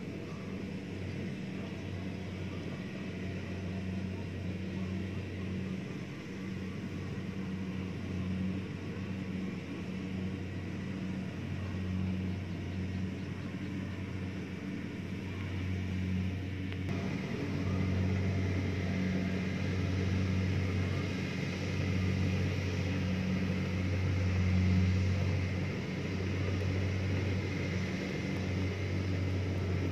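Rice combine harvester's engine running steadily across the field, a low hum that gets louder in the second half.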